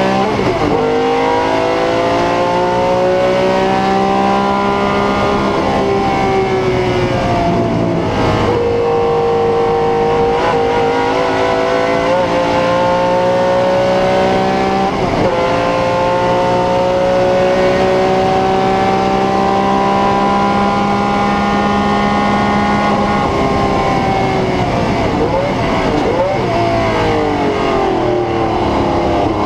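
Ferrari 512 M's 5-litre V12 at full throttle, heard from onboard. Its pitch climbs through each gear, with sharp drops at the upshifts near the start and about 8 and 15 seconds in, then holds high on a long flat-out stretch. Near the end it falls away through several downshifts with quick throttle blips.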